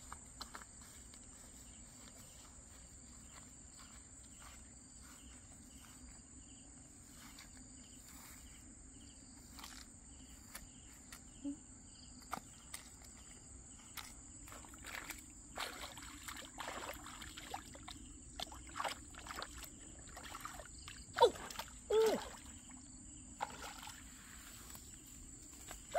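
Hands scooping and sloshing in a shallow muddy puddle: scattered small splashes from about halfway, loudest a few seconds before the end. Under it, a steady high-pitched insect drone.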